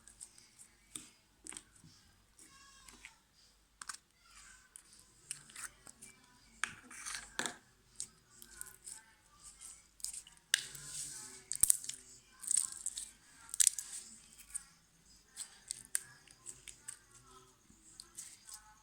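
Slime being squished and worked by hand, giving a string of irregular clicks, crackles and small pops, thickest and loudest around the middle of the stretch.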